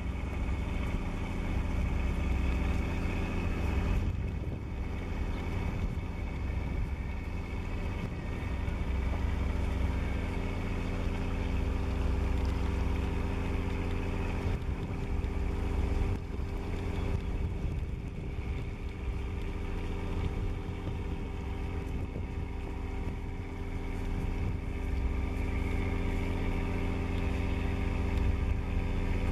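Cruise ship Canadian Empress's engine running steadily under way: a constant low drone with a stack of steady hum tones.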